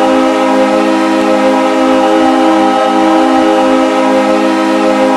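Goal horn sounding one long, unbroken chord of several low tones.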